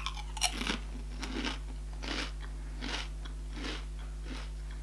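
Someone biting into a crisp chip topped with barbecue sauce and chewing it: a sharp crunch about half a second in, then crunching chews roughly every three-quarters of a second that grow fainter.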